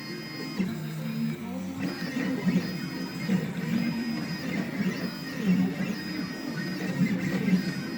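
Desktop CNC machine's stepper motors running, giving a buzzing tone that jumps from pitch to pitch as the axes move, with a high whine that switches on and off every second or so.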